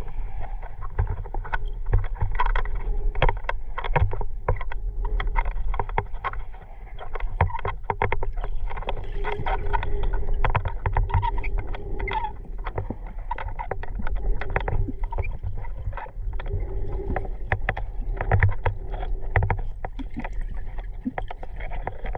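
Muffled underwater noise through a camera housing: a steady low rumble of water moving past, with frequent irregular clicks and knocks.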